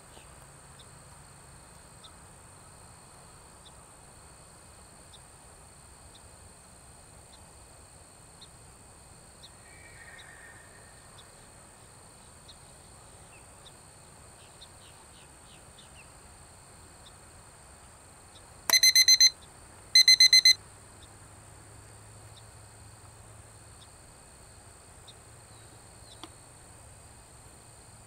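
Two short bursts of rapid electronic alarm beeping, a little over half a second apart, about two-thirds of the way through, loud over a steady high drone of insects.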